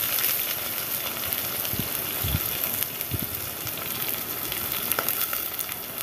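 Freshly added chopped onions sizzling in hot oil with whole spices in a pot, the tempering (tadka) for dal. A steady frying hiss that slowly eases, with a few faint crackles.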